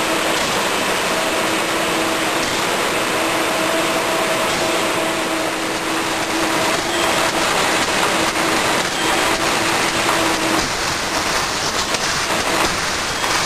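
A film-only shrink-wrapping machine running on a bottling line: a steady, dense rush of machine noise with a steady hum that stops about ten and a half seconds in. Light clicking and clattering comes in during the second half.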